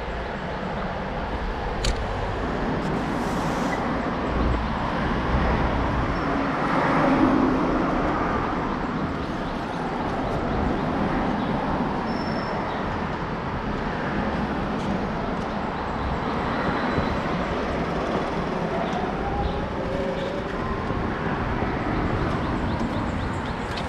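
Steady traffic and road noise with a low rumble, heard while riding a bicycle along a city road.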